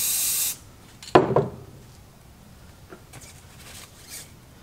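Aerosol spray-paint can hissing as brown paint is sprayed into a puddle on a paper plate, cutting off about half a second in. About a second in comes a sharp clunk, the loudest sound, as the metal can is set down on the wooden workbench, followed by faint rustling of a loofah.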